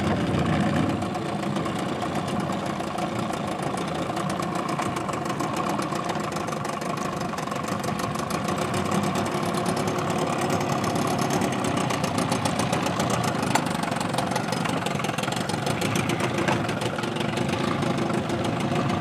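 Outboard motor running steadily at idle speed while the boat is backed in.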